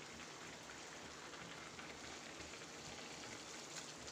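Faint, steady hiss of chickpea curry simmering in a pan on a gas stove, with a soft tap near the end.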